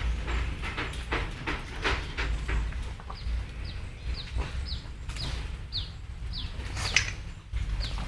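A bird chirping over and over, short high chirps that each fall in pitch, about two a second from about three seconds in. Under it, scattered short knocks and scuffles and a steady low rumble.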